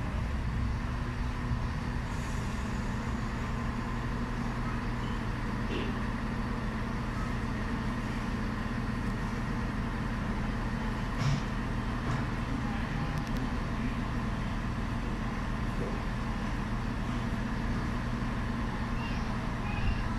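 Class 170 Turbostar diesel multiple unit's underfloor diesel engines running with a steady low hum as the train pulls slowly into the platform and stops. A brief knock comes about 11 seconds in.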